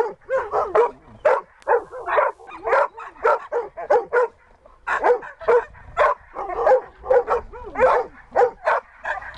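Siberian husky barking and yelping in a rapid run, about two to three short calls a second with a brief pause midway, at a search-and-rescue hide box, the search dog's bark alert at the hide.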